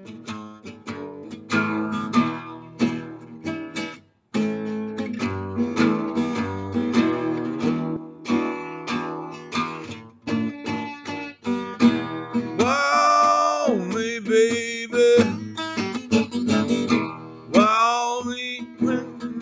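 Acoustic guitar playing a blues, picked and strummed, with two long wordless vocal phrases coming in over it in the second half.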